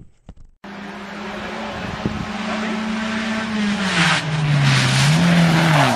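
A rally car's engine at speed, approaching and growing steadily louder over road noise. About four seconds in its note drops and wavers.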